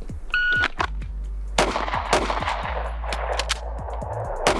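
Shot-timer start beep, then two quick pistol shots about half a second apart. After a short pause for a slide-lock reload, firing resumes near the end.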